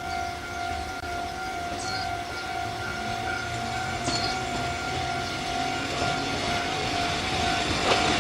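Level crossing warning alarm sounding a steady high tone, while an approaching train grows louder near the end.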